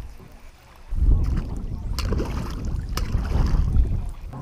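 Wind rumbling on the microphone over small waves lapping at a rocky lakeshore, with two sharp clicks about two and three seconds in.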